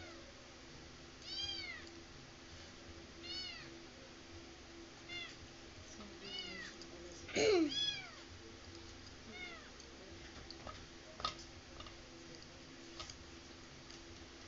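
A cat meowing repeatedly: about seven short, high, rising-and-falling meows, the loudest pair about halfway through. A few sharp clicks follow near the end.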